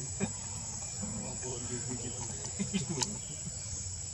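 Steady high-pitched drone of an insect chorus, like crickets, with a few short clicks. The sharpest click comes about three seconds in.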